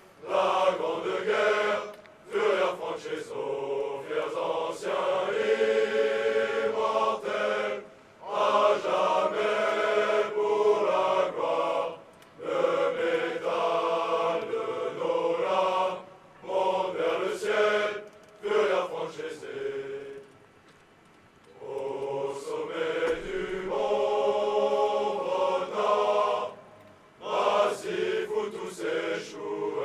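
A massed choir of men's voices sings a slow song in long held phrases, with short breaths between them and a pause of about two seconds about two-thirds of the way through.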